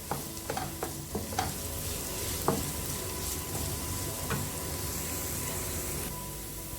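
Diced potatoes and chopped onion sizzling in olive oil in a non-stick frying pan while being stirred, with a few sharp knocks and scrapes of the utensil against the pan, mostly in the first couple of seconds.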